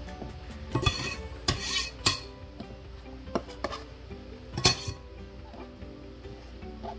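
Chef's knife knocking and scraping on a plastic cutting board as chopped red bell pepper is swept off into a bowl: a few separate knocks and a short scrape in the first five seconds.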